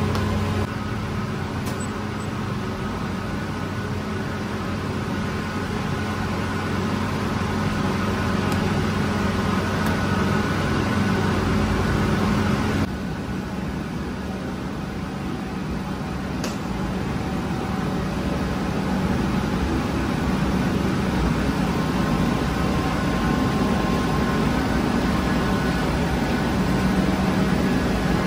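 Steady hum of bakery machinery, a dough mixer running at first, with steady tones over a low rumble. The sound changes abruptly about 13 seconds in to a deeper rumble, as the scene moves to the bread oven.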